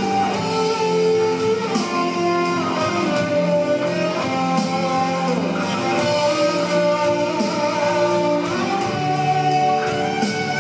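Instrumental introduction of a Malay pop song played from a backing track, with held chords and melody lines and no vocals.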